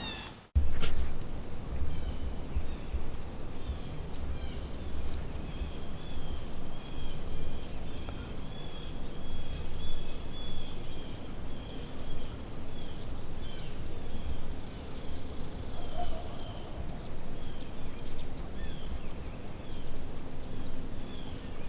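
Small birds chirping over and over in quick short calls, with a low rumble underneath and a brief buzzy call about fifteen seconds in.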